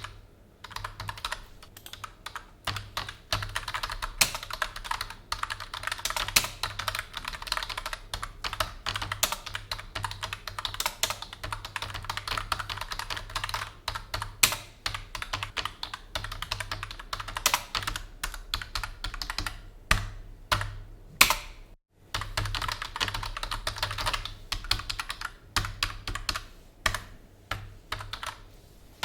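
Continuous typing on a PC keyboard: rapid runs of key clicks with a few louder strokes, pausing briefly a little past the two-thirds mark before the typing resumes.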